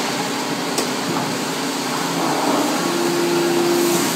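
Steady whirring hiss of a running chain soldering and annealing tunnel furnace, its belt drive and gas flow going, with a brief steady tone near the end.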